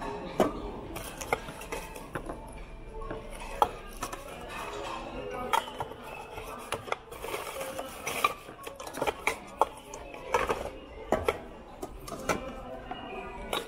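Nested stainless-steel cooking pots clinking and knocking against each other as they are handled, with paper packing rustling in between.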